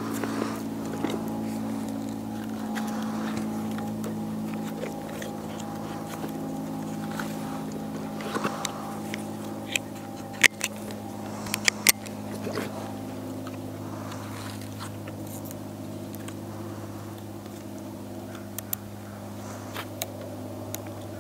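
Steady drone of a motor engine running in the background. A few sharp clicks come about ten to twelve seconds in, fitting hand pruners snipping garden string.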